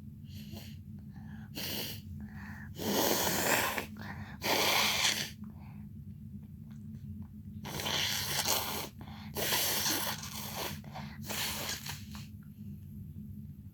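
A person's noisy, forceful breaths and snorts through the nose as a swab tickles it to bring on a sneeze: about six huffs, the loudest two around three and five seconds in, each about a second long.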